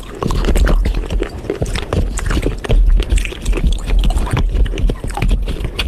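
Close-up crunching and chewing of hard baked clay pot pieces: a dense run of sharp cracks and clicks over a deep rumble.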